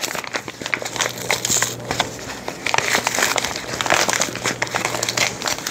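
Paper flour bag being torn and pulled open by hand: an irregular run of crinkling and crackling from the stiff paper.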